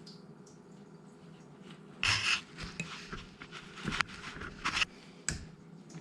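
Scraping, rattling and sharp clicks of hands and a small screwdriver working at plastic parts and wire connectors on a dishwasher's pump and motor assembly. It starts about two seconds in with a loud scrape, followed by several clicks and knocks, over a faint steady hum.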